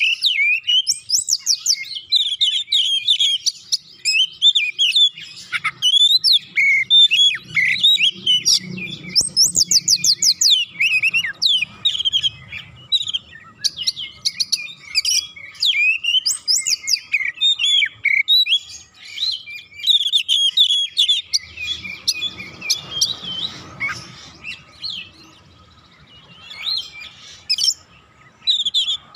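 Male Oriental magpie-robin singing a loud, varied song of whistled phrases and fast trills. The song drops to a lull about three-quarters through and picks up again near the end.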